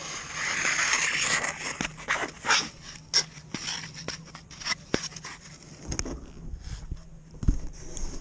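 Ice skates hissing, scraping and clicking on smooth lake ice as a skater comes to a stop close by. Near the end come deeper knocks and thumps as the model plane is picked up by hand.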